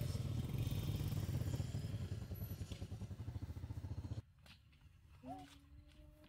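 Motorbike engine running with a pulsing note as it rides off, cutting off abruptly about four seconds in. A short, faint pitched sound near the end.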